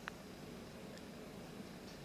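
A short, light click about a tenth of a second in, then two fainter ticks, from handling the hard drive in the media player's drive bay, over a steady low hum.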